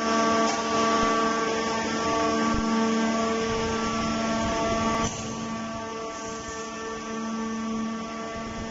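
Hydraulic forging press's pump unit running with a steady, even-pitched hum and a hiss over it. It turns suddenly quieter about five seconds in.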